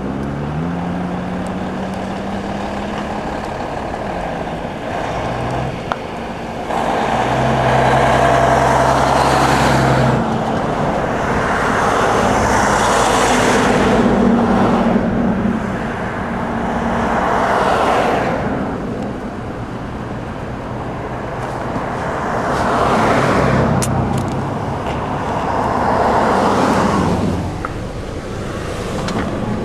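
Highway traffic passing: the rush of one vehicle after another swells and fades about five times over a steady low engine hum.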